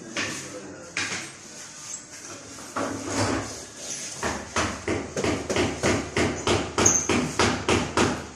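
Open palms slapping a large glass mirror panel to press it onto the wall: a few scattered slaps at first, then from about halfway a quick even run of sharp slaps, about four a second.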